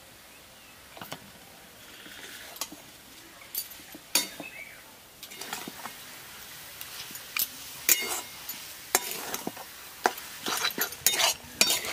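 Metal spatula scraping and knocking against a metal karahi as a thick mashed-potato filling is stirred and pressed. Irregular scrapes and clanks grow busier and louder about halfway through.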